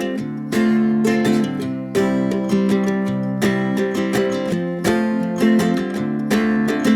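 Background music led by a strummed acoustic guitar with a steady rhythm.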